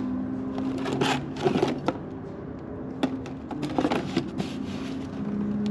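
Small objects being handled and set down: irregular clicks and knocks, a few sharper ones near the middle, over a low steady hum.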